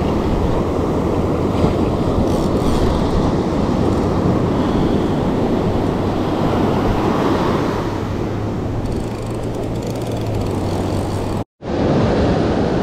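Wind buffeting the microphone over surf washing on the shore: a steady, low rushing noise, broken by a brief dropout near the end.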